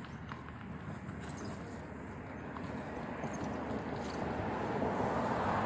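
Hoverboard wheels rolling over a gravel path, a steady grinding crunch that grows louder in the second half.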